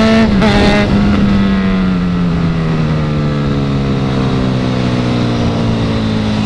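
Honda CB1000 motorcycle's inline-four engine running on the move, its revs falling steadily as the bike decelerates.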